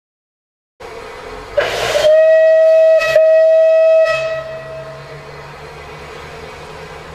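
Steam whistle of Bulleid Battle of Britain class Pacific 34053 Sir Keith Park, blown in two blasts on one steady pitch with a brief break between them, opening with a short hiss. A low steady engine hum follows.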